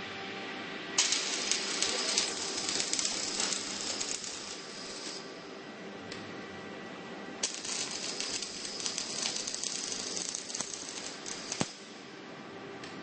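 Automatic welding arc crackling and sizzling in two runs of about four seconds each, over a steady machine hum, with a sharp click near the end of the second run.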